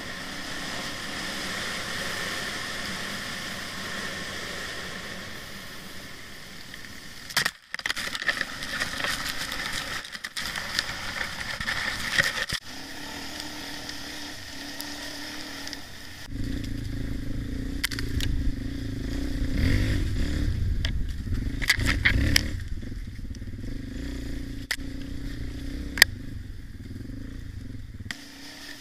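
Dirt bike engine running as the bike is ridden along a forest trail, with sharp crackles and knocks from brush and the rough track between about 7 and 13 seconds in. About halfway through the engine becomes louder and deeper under more throttle.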